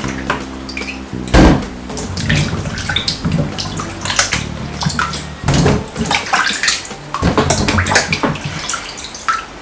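Hands sloshing peeled yam pieces around in a stainless steel sink basin full of water, washing them, with irregular splashes and knocks.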